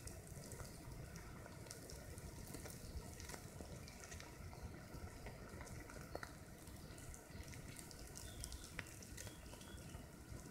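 Faint, steady sizzle from a wood-ant mound: thousands of ants crawling over dry conifer needles, giving a dense patter of tiny ticks and crackles.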